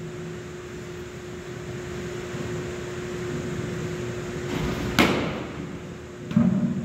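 A baseball smacking sharply into a catcher's mitt about five seconds in, the loudest sound, followed about a second and a half later by a duller thump, over a steady low hum.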